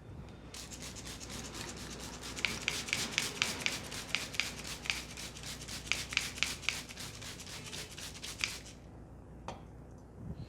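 Fingers rubbing and scrubbing vigorously through hair and over the scalp in a head massage: a fast, scratchy rubbing with many quick strokes and crisp clicks. It starts about half a second in and stops shortly before the end.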